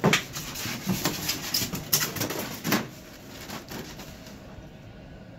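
Handling noise on the sheet-metal underside of a gas cooktop: a few sharp clicks and knocks as parts are picked up and set down, the loudest right at the start and about two seconds in. It goes quieter after about three seconds.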